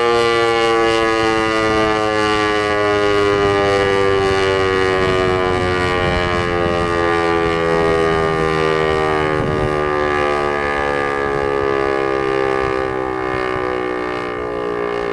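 Federal Signal 508 dual-tone rotating electromechanical siren winding down, its two chords sliding slowly and steadily lower in pitch as the rotor loses speed after the steady alert signal, and getting a little quieter near the end.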